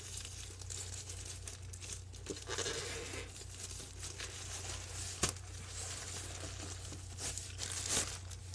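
Hands tearing and crinkling packaging to open a mailed package, with a couple of sharp clicks about five and eight seconds in.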